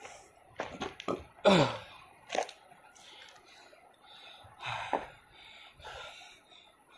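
A man's short, breathy effort sounds and exhalations as he gets down into push-up position, with a few scuffs and knocks of hands on dirt close to the phone. The loudest is a short sound falling in pitch about a second and a half in.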